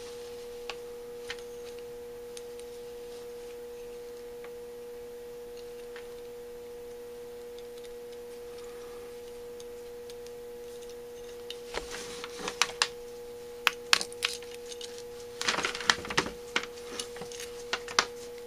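Small clicks and taps of small metal parts being handled: screws and the choke housing pieces of a carburetor knocking together, starting about two-thirds of the way in. A steady high electrical tone hums underneath throughout.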